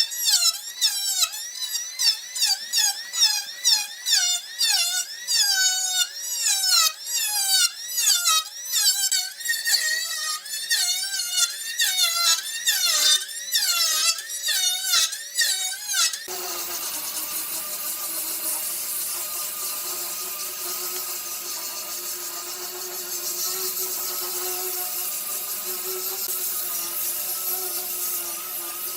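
Rapid, rhythmic squeaking strokes of hand work on wood, about two a second. About halfway through this cuts off suddenly and a power tool starts running with a steady whir.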